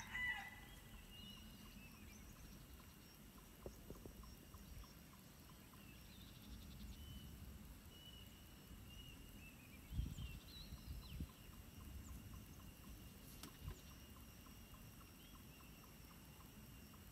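Near-quiet outdoor ambience: a rooster's crow dies away right at the start, then faint distant bird calls and a couple of low bumps around the middle.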